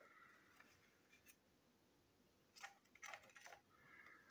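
Near silence, broken by a few faint clicks and ticks of small objects being handled, about two-thirds of the way in.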